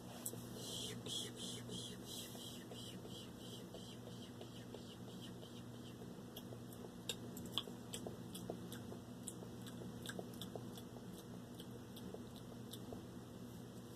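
Close-miked ASMR mouth sounds: a quick run of airy, breathy puffs in the first couple of seconds, then scattered soft wet mouth clicks and smacks, over a faint steady hum.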